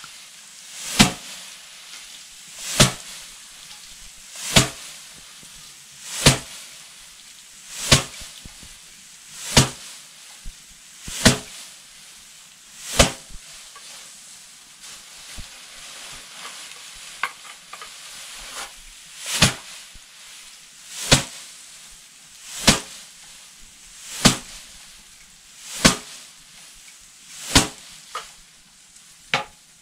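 Hand threshing of Riceberry rice: a sheaf of stalks is swung down and beaten against a slanted wooden board, each stroke a swish ending in a sharp slap, with grain and straw rattling. The strokes come steadily about once every 1.7 seconds, with a pause of several seconds midway filled with lighter rattles as the sheaf is handled.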